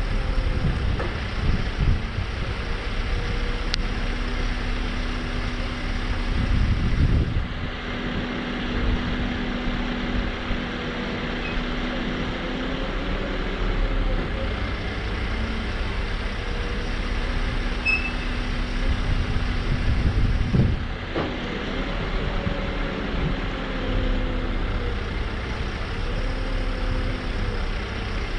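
Diesel engine of a Nissan NT400 Cabstar running steadily to drive the hydraulics of its Isoli PT160 truck-mounted boom lift while the boom extends and retracts. A steady hum from the hydraulic drive rises and falls away three times as the boom moves.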